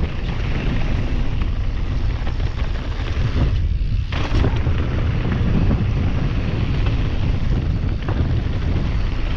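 Wind buffeting the microphone over the rumble of mountain bike tyres running fast on a dirt forest trail, with a brief lull a little before halfway.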